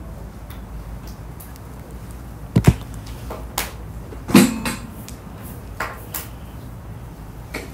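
Scattered sharp knocks and clicks over a steady low room hum, the two loudest about two and a half and four and a half seconds in: classroom handling noises such as desks, chairs and objects being set down.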